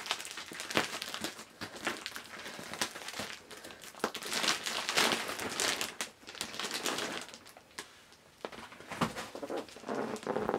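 Clear plastic wrapping of a vacuum-sealed, double-wrapped package crinkling and crackling in irregular bursts as it is handled and worked open.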